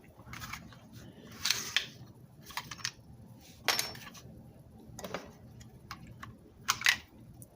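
Heavy-duty staple gun being worked by hand: a string of short plastic-and-metal clicks and clacks, the sharpest a quick double clack near the end.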